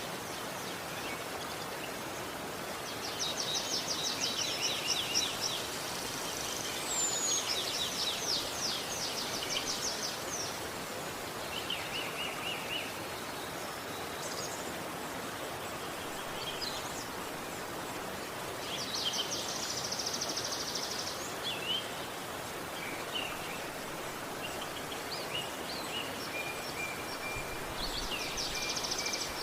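River water rushing steadily, with songbirds singing over it in several bursts of rapid high trilling notes and scattered short chirps.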